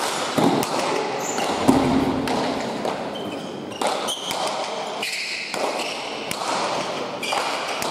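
Basque pelota ball cracking repeatedly off players' strikes, the front wall and the floor during a rally, each hit echoing through the indoor court, with a few brief shoe squeaks and a low murmur of spectators.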